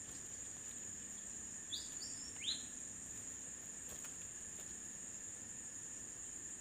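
Steady high-pitched drone of an insect chorus, with a bird giving three short rising chirps about two seconds in.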